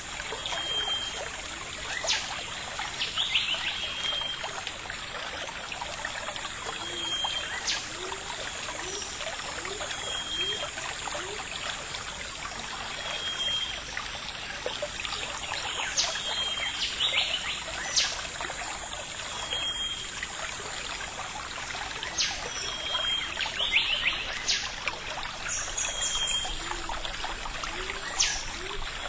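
Forest ambience: a steady trickle of running water, with a bird repeating one short high note about every three seconds and a few sharp chirps between.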